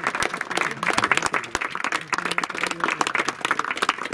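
A small group of people applauding, a dense, steady patter of hand claps, with faint voices underneath.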